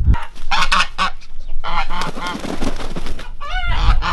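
Domestic goose honking loudly in three clusters of calls while it charges with wings spread, an aggressive attack display. The last calls rise and fall in pitch.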